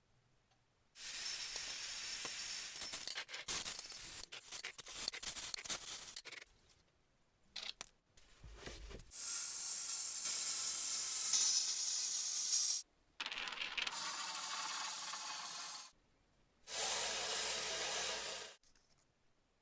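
Restoration work noises cut together in short clips: scraping and rubbing on metal, then longer stretches of steady hissing. Each clip is cut off suddenly by a drop to near silence.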